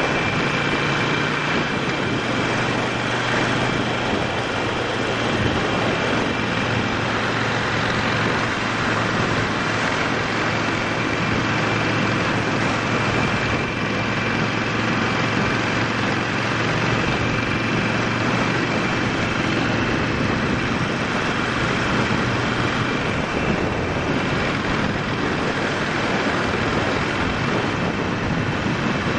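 Harley-Davidson Sportster 48's V-twin engine running while riding, mixed with a steady rush of wind and road noise. A low steady engine note is clearest through the first half.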